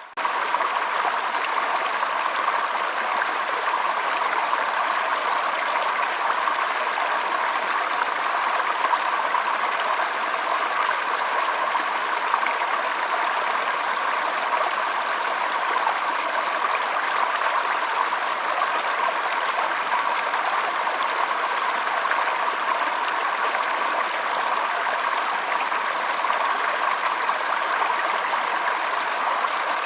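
Water flowing steadily in a stream, an even rushing that doesn't change, cut out for an instant right at the start.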